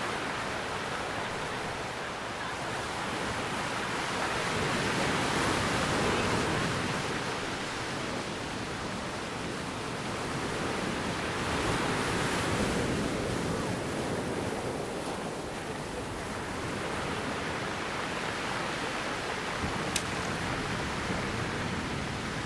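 Sea surf: waves breaking and washing in, a steady rushing noise that swells and eases every six seconds or so. A single sharp click comes near the end.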